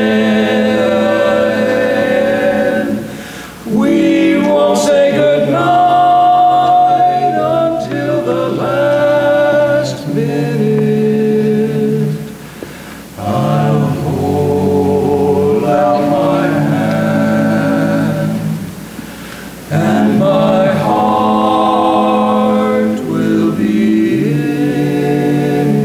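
Barbershop quartet: four men's voices singing a cappella in close four-part harmony, holding chords in long phrases with short breaks between them.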